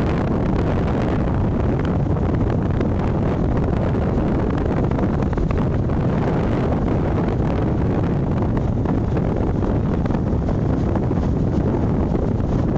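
Strong wind buffeting the phone's microphone in a steady low rumble, over the wash of rough sea waves breaking on the shore.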